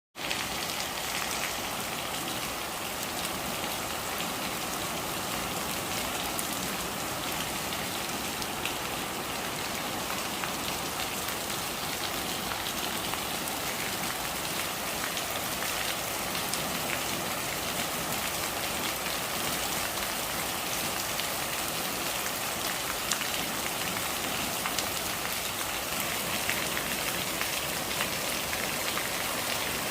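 Steady rain falling, with many small drops pattering on hard surfaces.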